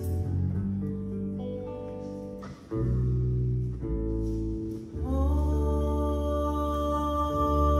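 Live acoustic music: a woman singing a slow song over acoustic guitar and bass guitar. About five seconds in, a new note slides up and is held.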